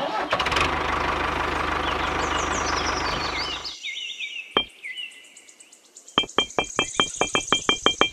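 A toy tractor's small electric motor and gears run with a steady whir for about three and a half seconds, then stop. After a single click, a quick run of light clicks comes near the end, against background music.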